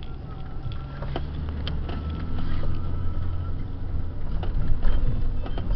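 Off-road 4x4 engine droning, heard from inside the cabin while driving over sand dunes, getting louder about two seconds in as the engine works harder, with scattered knocks and rattles from the bumpy ride.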